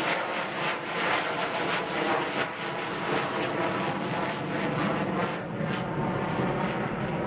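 Avro Vulcan bomber's four Rolls-Royce Olympus turbojets at power as it flies overhead and climbs away after a go-around: steady, rough jet noise with a rapid crackle running through it.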